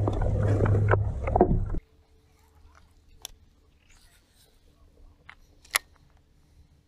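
Low steady rumble of a fishing boat on the water that cuts off abruptly about two seconds in. After that comes a faint steady hum and a few sharp clicks as a baitcasting rod and reel is handled and cast.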